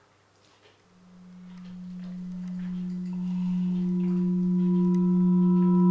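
A steady low droning tone starts about a second in and swells louder, with higher ringing overtones joining about two and three seconds in: a rising drone sound effect on the soundtrack.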